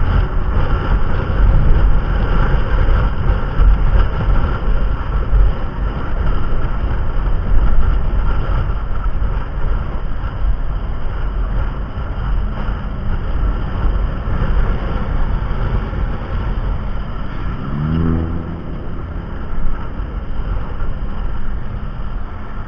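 Car driving, heard from inside: a steady heavy low rumble of engine and road noise, with a short rising whine about eighteen seconds in.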